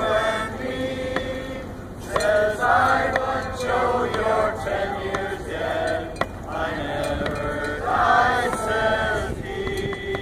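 A group of people singing a slow, mournful song together in unison, in long phrases with short breaks between them.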